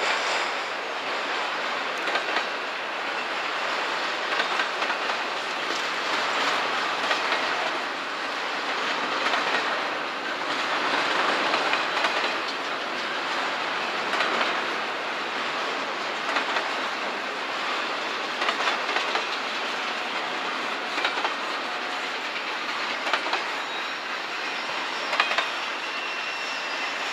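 Double-stack intermodal container cars rolling past, a steady rumble with steel wheels clicking over rail joints. A faint high whine comes in near the end.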